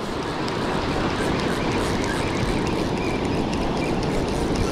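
Steady wash of breaking surf with wind buffeting the microphone.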